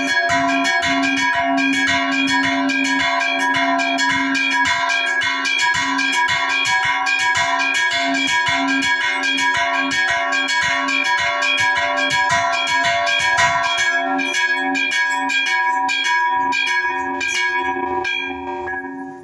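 Chapel church bells rung in a fast festive repique, several bells struck in rapid succession over one another with their tones ringing on. In the last few seconds the strikes thin out and slow as the peal winds down.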